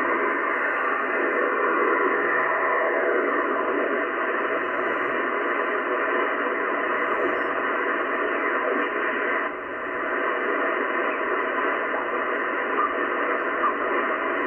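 Shortwave band noise from a Yaesu FTdx10 transceiver in upper-sideband mode as the dial is turned slowly up through about 5.2 MHz: a steady rush of static squeezed into the narrow sideband passband, with faint steady tones and a few sliding whistles as carriers pass, and a brief dip in the noise about nine and a half seconds in.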